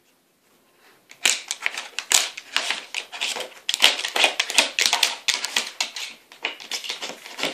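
Rapid clicking and clattering of the black blocks in a Nina Ottosson wooden dog puzzle board, knocked and slid by a dog's nose and paws as it hunts for treats. It starts about a second in and goes on in quick, uneven taps.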